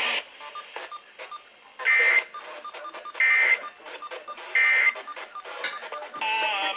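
Three short EAS end-of-message data bursts, the screechy digital tones that mark the close of an emergency alert, heard through an FM radio about a second and a half apart. Near the end, the station's music programming comes back on.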